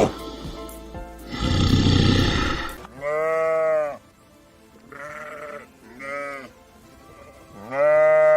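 A loud, rough, noisy animal call, then four bleats: a long one, two short ones, and another long one near the end.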